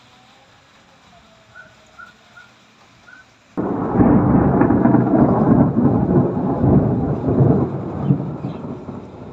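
A thunderclap about three and a half seconds in: it breaks in suddenly and loud, then rumbles on for several seconds, fading away near the end.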